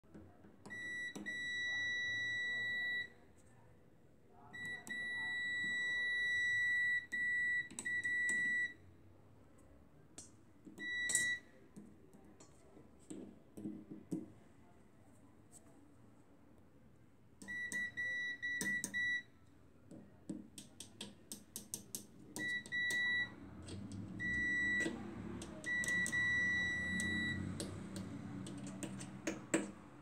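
Digital multimeter's continuity tester beeping: a steady high tone in on-and-off stretches, from under a second to about three seconds long, each beep signalling that the probes have found an unbroken path in the microwave oven's ground wiring. Light clicks and scrapes of the probe tips on metal between the beeps.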